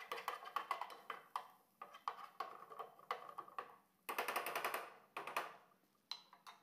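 Chopped garlic sizzling and crackling in hot fat in a nonstick frying pan, stirred and scraped with a wooden spatula. The crackle comes and goes in bursts.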